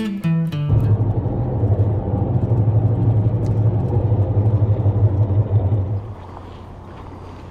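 Car driving on a freeway, heard from inside the cabin: a steady low road-and-engine rumble that follows the end of acoustic guitar music. About six seconds in it cuts to a much quieter steady outdoor hum.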